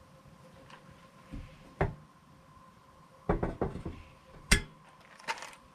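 Dishes, pans and utensils clattering in a small kitchen: a handful of separate knocks and clinks, a cluster of them in the middle and the sharpest just after, over a faint steady hum.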